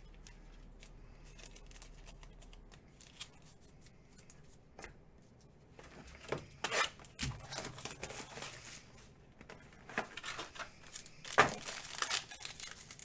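Trading card packaging being handled: crinkling and tearing of pack wrappers and plastic, faint at first, then starting about six seconds in with irregular crackles and a sharp loud crinkle near the end.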